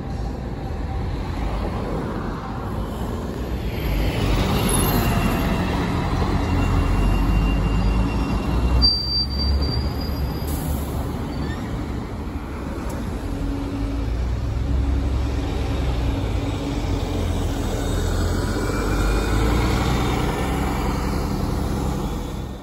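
Street traffic with a city bus and cars passing close, a steady low engine and tyre rumble that swells and fades. About nine seconds in there is a brief sharp high squeal or hiss.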